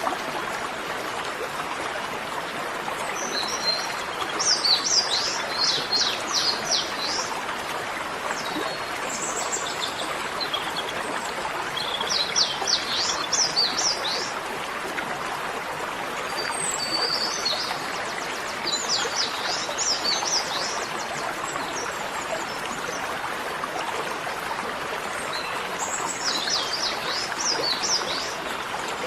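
A bird singing four short phrases of rapid, quickly falling high notes, spaced several seconds apart, over a steady rushing background noise.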